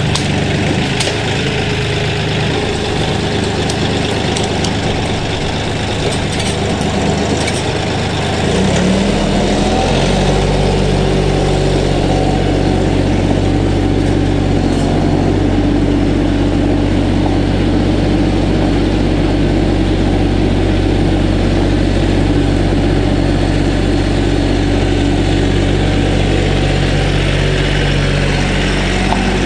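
Kioti CK4010SE compact tractor's diesel engine running steadily, with a few light clicks in the first several seconds. About nine seconds in the engine note rises and gets louder, then holds steady at the higher speed.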